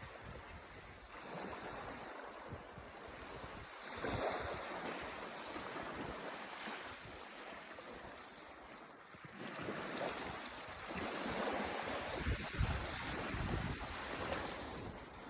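Small sea waves washing onto a beach, swelling and ebbing every few seconds, with gusts of wind buffeting the microphone.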